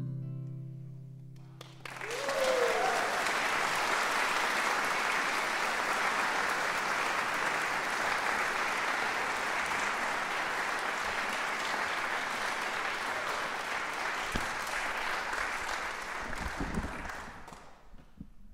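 The last chord of a mandolin and guitar song rings out and dies away. Then an audience applauds for about fifteen seconds, with a short cheer as the clapping starts, and the applause fades out near the end.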